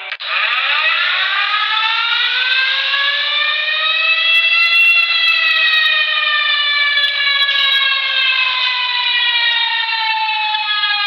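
A siren starts abruptly and winds up, rising in pitch for about five seconds, then slowly falls in pitch for the rest of the time.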